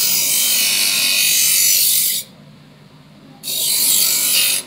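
Electric bench grinder's wheel grinding a steel chaff-cutter blade to sharpen it: a loud rasping hiss for about two seconds, a break of about a second with only the motor hum running, then a second grinding pass of just over a second.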